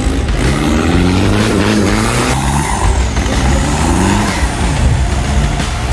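Off-road 4x4 engine revving hard under load, its pitch rising in two long sweeps as it claws through deep mud and up a dirt bank.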